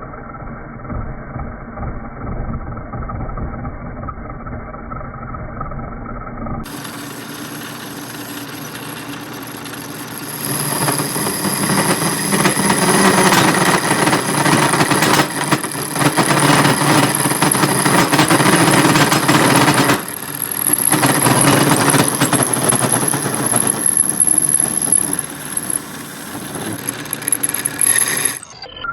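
Metal lathe running, then cutting metal: a loud, rough, steady cutting noise with a thin high whine over it, broken by a short pause about two-thirds of the way through. The sound changes abruptly twice, where the recording is cut.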